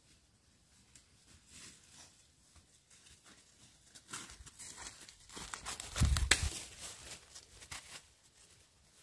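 Crackling, tearing handling noises that start about four seconds in and die away near the end, with one heavy thump about six seconds in.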